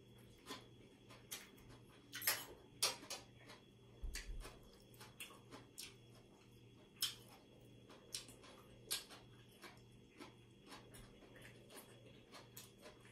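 Close eating sounds of a man chewing deep-fried pork rib and salad. They come as irregular short, sharp smacks and clicks of mouth and cutlery, loudest a couple of seconds in.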